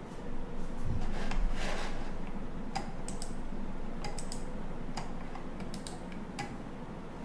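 Scattered sharp clicks at a computer, like keystrokes, starting almost three seconds in, after a short rustle.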